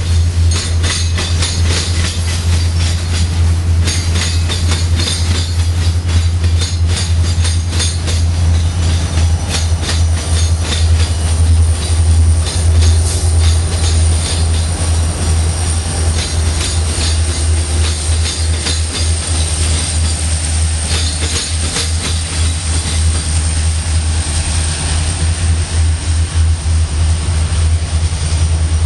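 Freight train rolling past close by: railcar wheels clicking over the rail joints under a deep, steady rumble, with a thin high wheel squeal. About halfway through, the train's rear diesel locomotives go by and the train moves off.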